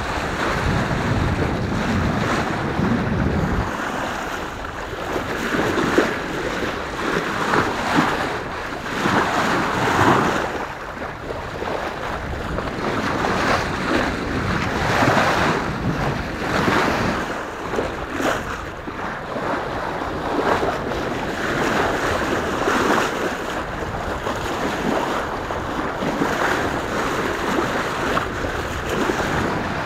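Water rushing and splashing along a sailboat's hull as the bow cuts through the sea, coming in surges every second or two, with wind buffeting the microphone. The wind rumble is heavy for the first few seconds, then eases.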